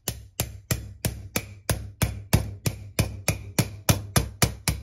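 A yellow-headed mallet tapping a new wheel bearing into a minibike's spoked wheel hub through a flat bar laid over the bearing. Quick, even, sharp strikes come about three or four times a second, driving the bearing home.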